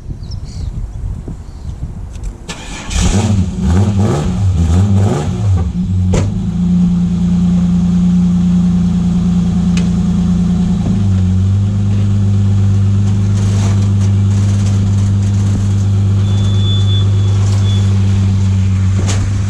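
A Holden VS Commodore's engine starts about three seconds in and is revved up and down a few times. It then holds a steady fast idle, which drops to a lower, settled idle about halfway through.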